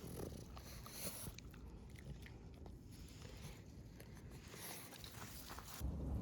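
A Boston terrier chewing, with faint, irregular clicks and crunches. Near the end a louder, low, rough sound from the dog begins.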